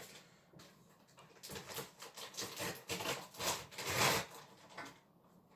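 Plastic meat packaging crackling and rustling as it is cut and forced open with scissors: irregular crinkly noises starting about a second and a half in, loudest near the end.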